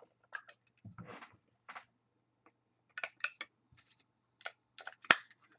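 A trading card in clear plastic sleeves and holders being handled: irregular rustles, scrapes and light clicks, with one sharp click about five seconds in.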